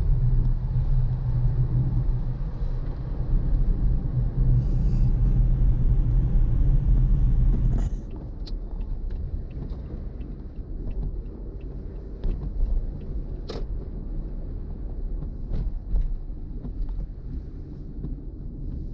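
Car engine and road rumble heard from inside a moving car, steady and low. About eight seconds in it drops suddenly to a quieter low rumble with a few faint clicks.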